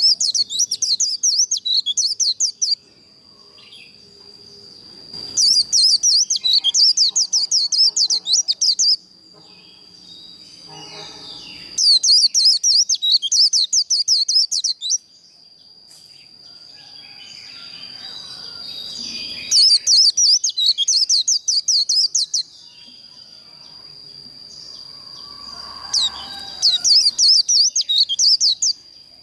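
White-eye (vành khuyên) singing its fast twittering 'líu' song in five bursts of about three seconds each. A thin steady high whine and softer faint chatter fill the gaps between the bursts.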